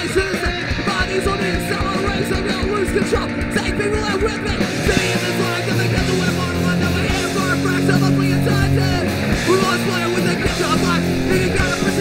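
Punk rock band playing a song live, with guitar, bass and drums; the sound grows brighter and fuller about five seconds in.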